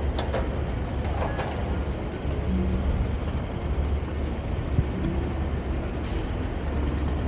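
Steady low rumble of motor vehicles and traffic, with a few brief faint clicks about a second in.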